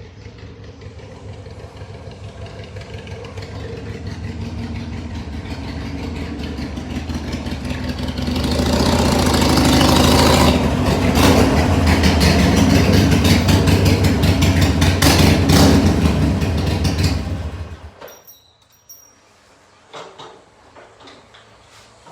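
Harley-Davidson Iron 883's air-cooled V-twin running through HD Radium aftermarket exhaust, getting louder over about ten seconds as the motorcycle rides back in, staying loud, then shut off suddenly near the end, followed by a few faint clicks.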